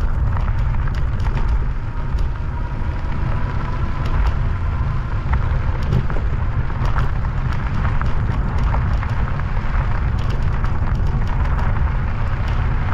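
Wind buffeting the microphone on a moving e-bike: a steady loud low rumble with scattered faint clicks and rattles.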